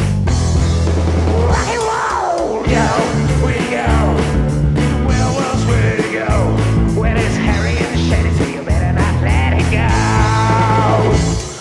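Rock song with singing over a steady bass line and drums.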